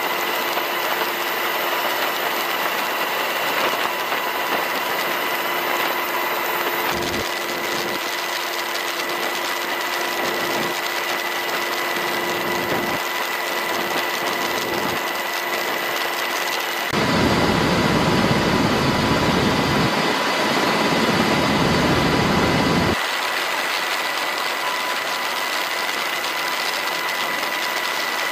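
Helicopter turbine engines and rotor running steadily, heard from aboard the aircraft, with a constant high whine over a rushing drone. The drone grows louder and deeper for about six seconds in the middle, then settles back.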